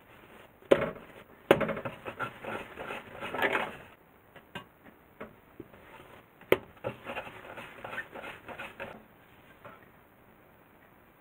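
Hands rounding soft bread dough balls on a wooden pastry board: rubbing and light tapping in two spells, each opening with a sharp knock.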